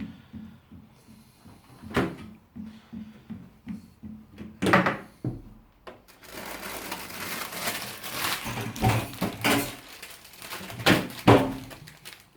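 Kitchen pots and utensils being handled: a few separate knocks and clatters, with a steady hiss setting in about six seconds in and more clatters over it.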